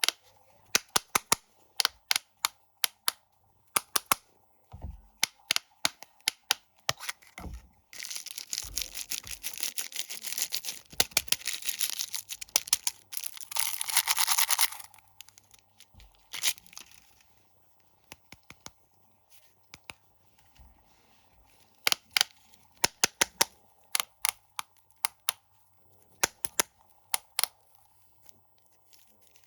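Plastic snack wrappers being handled, crinkling and tearing in sharp crackles. About eight seconds in they give way to a dense stretch of rustling that lasts about seven seconds, with a few soft low thumps before it.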